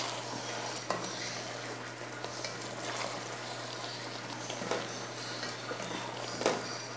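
Two spatulas stirring and turning chicken pieces in thick sauce in an enameled cast-iron pot, with a steady sizzle from the hot sauce and a few soft scrapes and knocks of the spatulas against the pot.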